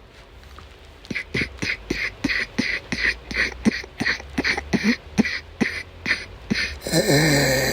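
A woman coughing in a rapid, unbroken fit of short hacking coughs, about four a second, starting about a second in, during an asthma attack. Near the end comes one longer, louder strained sound.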